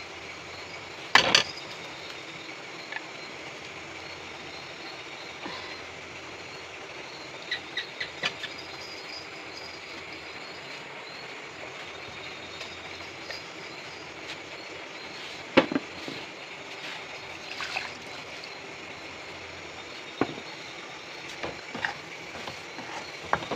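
Curry frying in a steel kadai on a gas burner, a steady hiss, with a few sharp clinks of a metal spoon and utensils against the pan.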